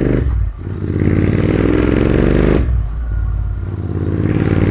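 Royal Enfield Continental GT650's 648 cc parallel-twin engine running through an aftermarket AEW exhaust with the dB killer removed, accelerating through the gears. The note climbs, drops away at a gear change about half a second in and again near three seconds in, and climbs again each time.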